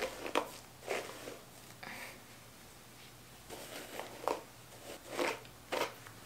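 Hairbrush drawn down through long hair in a series of short brushing strokes, several in quick succession, a pause about two seconds in, then more strokes.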